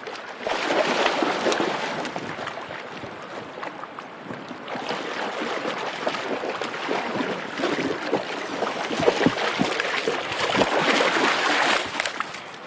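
A dog splashing through a shallow river, over the rush of the water, with irregular splashes. The splashing is loudest shortly after the start and again near the end.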